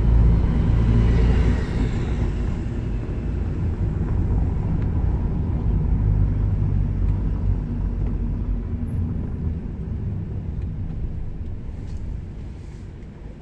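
Car engine and road noise heard from inside the cabin while driving, a low rumble that grows quieter over the last few seconds.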